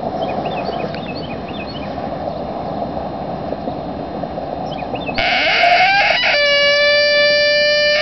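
Barnett Tribute coyote howler being blown in a howl. About five seconds in, a loud rising note starts, then breaks abruptly down to a lower steady note that is held. Before it there is steady road noise with a few faint chirps.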